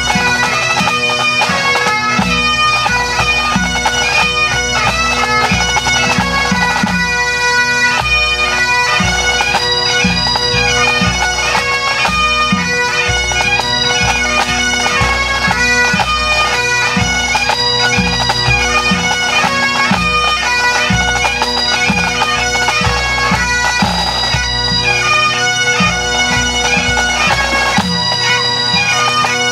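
Pipe band playing: Great Highland bagpipes with their steady drones under the chanter melody, and the drum corps beating in time, the bass drum giving a regular low beat.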